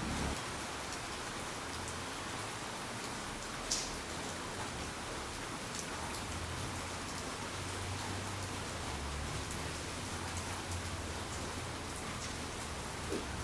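Steady rain falling, with now and then a single louder drop striking close by, the clearest about four seconds in. A faint low rumble comes and goes underneath.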